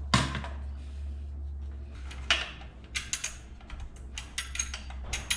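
A small single-cylinder engine is set down on an aluminium motor-mount plate with one sharp metal knock. Scattered metallic clicks and taps follow, coming thicker in the last couple of seconds, as the engine is shifted and handled on the mount.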